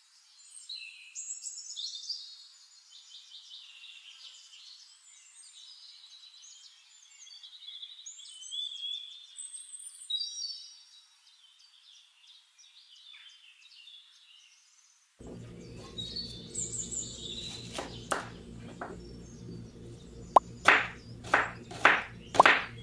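Birds chirping and trilling for the first fifteen seconds or so. Then a kitchen knife chopping red onion on a wooden cutting board, with sharp strikes about two a second near the end.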